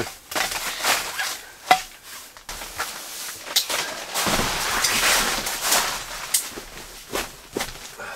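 Handling noises of camp gear: scattered knocks and clatters, and about four seconds in a longer rustling swish, as a foam sleeping pad is laid out on a folding camp cot.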